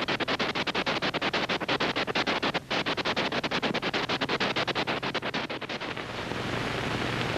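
Film projector running, its mechanism clattering in a rapid, even stream of clicks; about six seconds in the clatter gives way to a steady hiss with a low hum.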